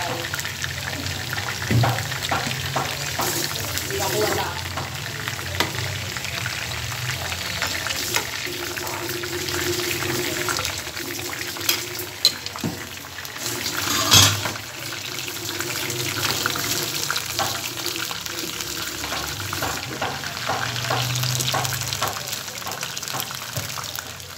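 Chicken pieces frying in shallow oil in a nonstick pan: a steady sizzle full of small crackles and pops. One louder knock about fourteen seconds in.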